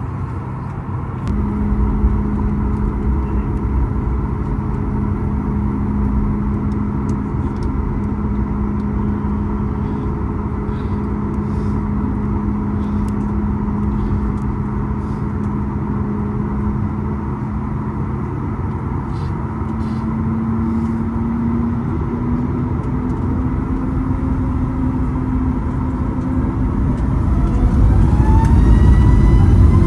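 Cabin noise of a Boeing 737 MAX 9, its CFM LEAP-1B turbofan engines running at low power with a steady hum. Near the end the engines spool up for takeoff: a rising whine, and the noise grows louder.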